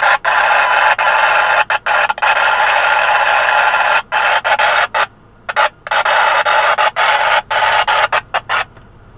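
Two-way radio hissing loudly with static from an open transmission, cutting out and back in abruptly several times and going quiet near the end.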